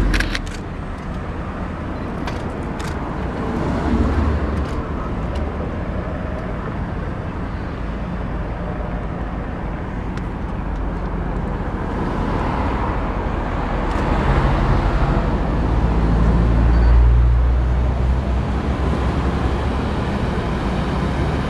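Low, steady outdoor rumble of distant vehicles, swelling about four seconds in and again for several seconds past the middle, with a few faint clicks at the start.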